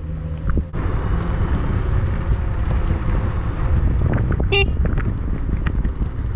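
Wind buffeting the camera microphone with a low road rumble while riding fast along a paved path. About four and a half seconds in there is a short, high beep like a small horn.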